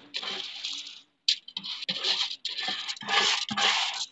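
Raw rice grains scraped by hand against an aluminium basin and pattering into an aluminium pot: a series of short, gritty rushes with brief breaks between them.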